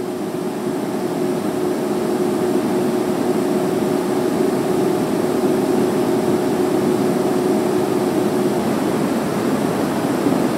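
Steady room tone: an even hiss with a faint low hum that stops near the end.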